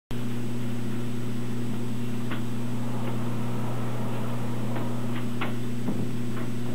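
A steady low hum with a thin high whine above it, and a few faint ticks scattered through it.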